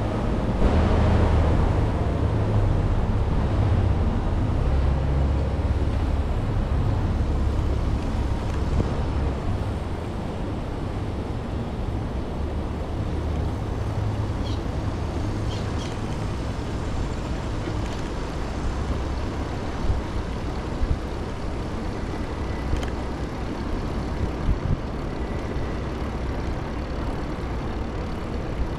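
Steady low rumble of a bicycle rolling over brick paving, with wind on the camera microphone, heavier for the first ten seconds or so. A few short sharp clicks come in the second half.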